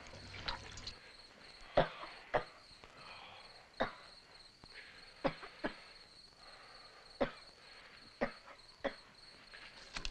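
Crickets chirring steadily in the background, with a few short, sharp knocks or taps scattered through.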